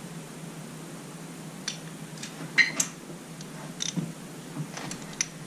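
Irregular light clicks and clinks of small metal hand tools being picked up and handled on a workbench, over a low steady hum.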